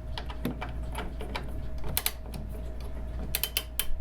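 Winding key turning in a grandfather clock's spring barrel, the ratchet click snapping over the ratchet wheel in a string of sharp, irregular clicks that bunch up near the end as the mainspring is wound.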